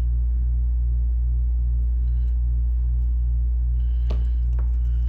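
Steady low electrical hum with a slight pulsing to it, with a couple of faint clicks about four seconds in.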